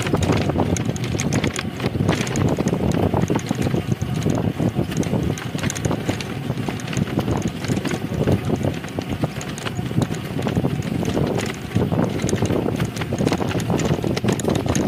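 Cycle rickshaw rolling along a paved road: a continuous rumble with steady rattling and clicking from the rickshaw.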